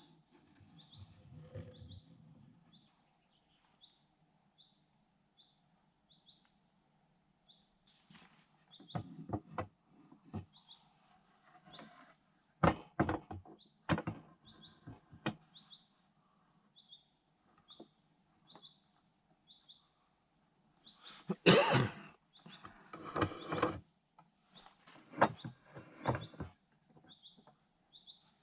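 A small bird repeats a short, high chirp about every two-thirds of a second, over irregular knocks and thuds of objects being handled, the loudest a little after the middle.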